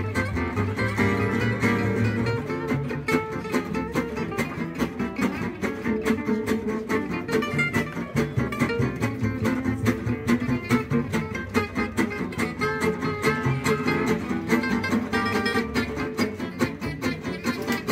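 Gypsy jazz jam: three acoustic guitars and a double bass playing a swing tune at a steady, brisk tempo, with the guitars strumming an even rhythmic chop under the melody.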